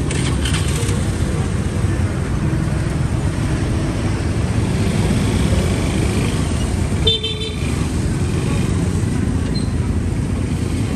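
Busy street traffic running steadily, with one short vehicle horn toot about seven seconds in.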